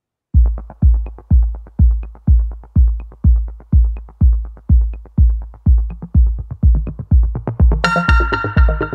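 Electronic dance music: a heavy kick drum beating steadily about twice a second, joined by a synthesizer melody near the end.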